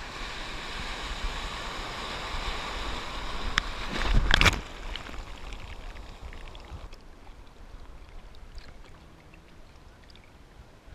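Surf water rushing and splashing right at a camera at the water's surface, with a loud splash about four seconds in, then settling to quieter lapping and hiss.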